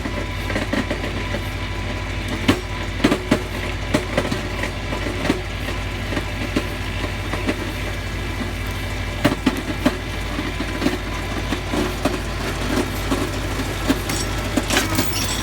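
Tractor engine running steadily under load as it drives a Farmi 501 logging winch pulling in a whole tree. Irregular sharp knocks and cracks sound over the drone throughout.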